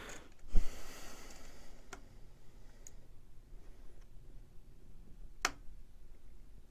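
Hand work at the screw terminals of a 3D printer's control board: a low knock about half a second in, then a few sharp, scattered clicks of a screwdriver and parts being handled.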